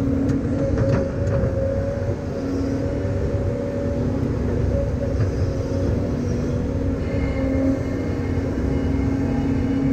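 An engine running steadily, a constant drone with a low rumble, its pitch shifting slightly a couple of times.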